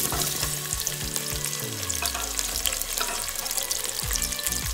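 Sliced onions sizzling and crackling in hot oil in a pressure cooker, just after being dropped in.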